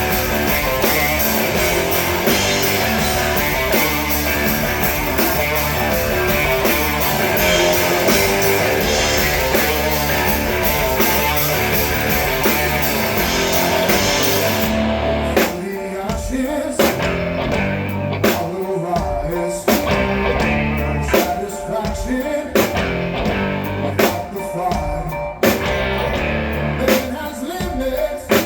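Live rock band playing, with electric guitar, drums and singing. About halfway through, the full wall of sound drops to a sparser section of separate hits and gaps.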